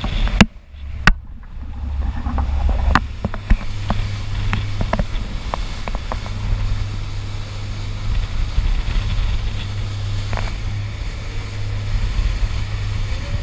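A small boat running at speed: the engine's steady low rumble under the rush of water past the hull and wind on the microphone. Sharp knocks come in the first second, and scattered splash-like clicks follow.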